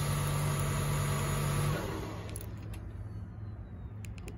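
3.6 L V6 engine of a 2021 Cadillac XT5 idling after a remote start with a steady hum. About two seconds in the hum drops off and gets quieter, and a few light clicks follow near the end.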